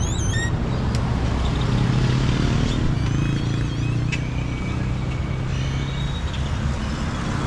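Motorcycle engine running while riding, a steady low hum that rises slightly in pitch about two seconds in, with wind and road noise. A few short high chirps sound at the start and again around three seconds in.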